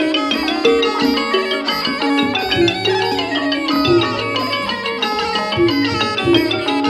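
Traditional instrumental music with quick runs of xylophone-like mallet notes over a steady drum pattern.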